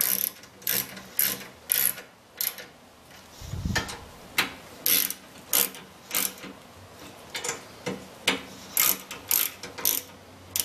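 Socket wrench ratcheting in short runs of clicks, about two strokes a second, as the luggage rack's bolts are tightened down. There is a dull bump a little over three seconds in.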